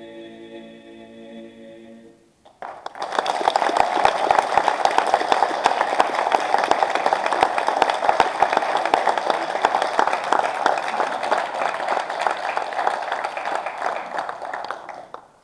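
Male klapa voices hold the final a cappella chord of a song, which ends about two seconds in. Then audience applause, steady and dense, for about twelve seconds, stopping abruptly near the end.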